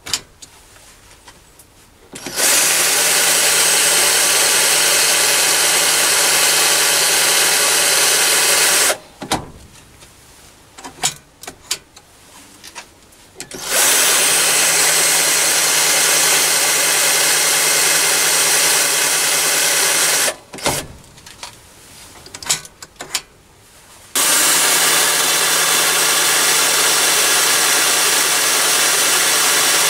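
Battery drill driving a lathe tool post drill, running at steady speed three times for several seconds each to centre-drill holes around an indexing ring. Short clicks and knocks come in the pauses between the runs.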